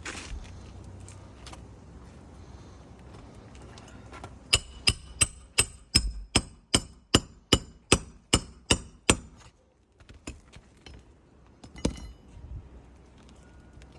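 A hammer driving roofing nails while a replacement asphalt shingle is fastened down: a quick run of about a dozen sharp, ringing strikes at roughly two and a half a second, then a few light taps and one more strike near the end.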